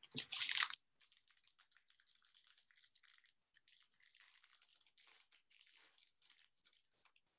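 Trading cards and their foil pack wrapper being handled: a short rustle at the start, then faint, continuous crinkling and light ticking as cards are shuffled through.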